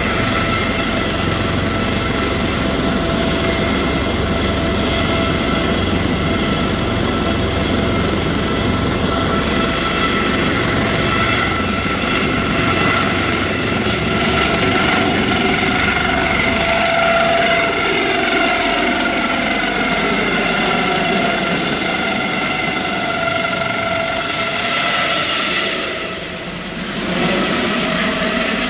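Medical helicopter taking off and climbing away, its turbine engine and rotor at full power: loud rotor noise with a steady high whine. About halfway through, several of the tones slide down in pitch as it moves off.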